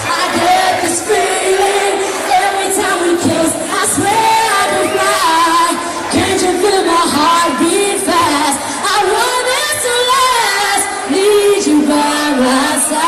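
Loud live dance-pop music with singing and crowd noise mixed in.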